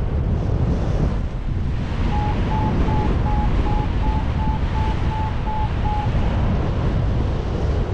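Wind rushing over the microphone, with a paraglider's variometer beeping in short pulses, about three a second, for some four seconds in the middle. The pitch lifts slightly and then drops back. Beeping like this is the variometer's signal that the glider is climbing in rising air.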